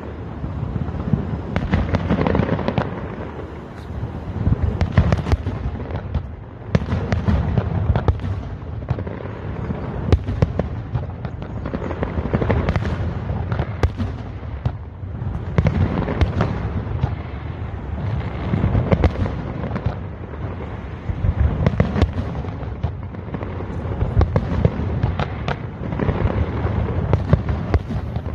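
Fireworks display: a continuous barrage of shells bursting, sharp cracks and bangs over a rolling low rumble, swelling and easing in waves.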